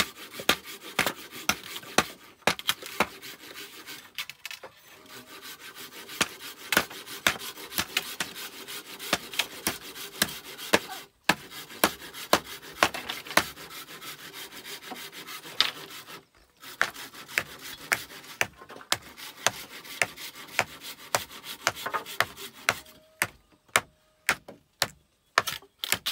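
Machete work on green bamboo poles: many sharp, irregular knocks of the blade striking the bamboo over a steady scraping of metal on bamboo. The knocks thin out into separate strokes near the end.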